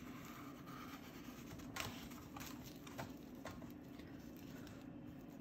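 Faint strokes of a drawing tool on sketchbook paper as lines are laid down, with a few light ticks, over a steady low hum.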